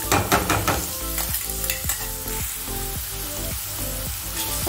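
Freshly ground garlic and herb paste sizzling in hot oil in a nonstick pan, stirred and scraped with a wooden spatula. A quick run of sharp clicks and knocks comes near the start.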